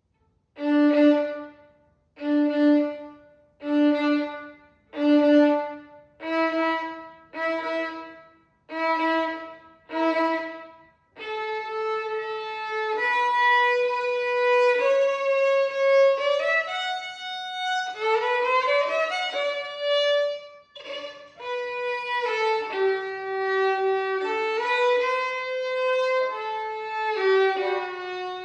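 Violin playing a slow waltz melody. It begins with eight separate bowed notes, each followed by a pause: four on the same pitch, then stepping higher. About eleven seconds in, it moves into a continuous, connected melody with slides between notes.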